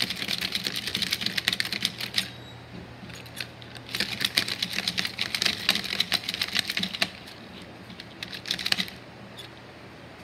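Small plastic toy figures knocked and clacked together in a mock fight: quick flurries of rapid clicks, three of them with short pauses between, the middle one the longest.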